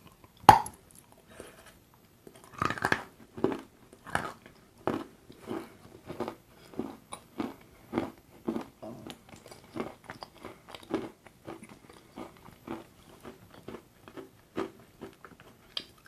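A bite into a lump of eating chalk coated in chocolate paste, with a sharp crunch about half a second in. Steady crunchy chewing follows, a little under two chews a second.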